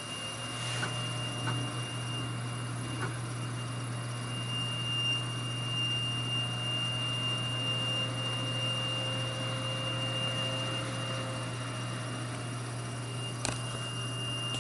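Steady high-pitched electrical whine from a PC with an MSI GeForce GTX 1080 Ti graphics card, over a low steady hum, with a single click near the end. It is coil whine, which the owner traces to either the graphics card or the power supply; it is present at idle and does not change with load.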